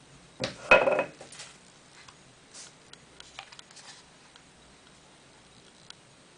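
Clicks and light metallic clatter as a FED-2 35 mm rangefinder camera is handled in the fingers. The sounds come in a cluster in the first second and a half, then only a few faint ticks follow.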